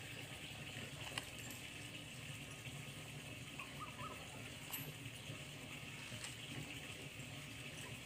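Faint, steady outdoor background hiss, with a couple of light clicks and a brief small chirp about halfway through.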